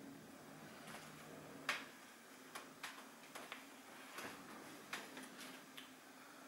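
Blue tit pecking at the wooden nest box's entrance hole: about ten sharp, irregular taps, the loudest about two seconds in. The pecking is the bird marking the nest.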